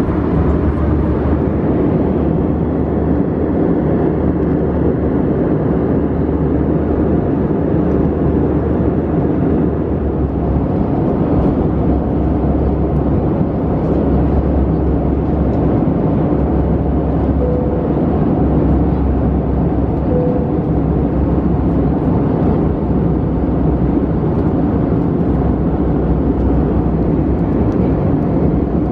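Steady cabin noise of an Airbus A320-200 in flight: the even rush of airflow and engines heard from a window seat, with a low hum underneath.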